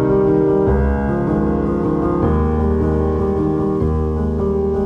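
Background instrumental music, sustained chords that change every second or so.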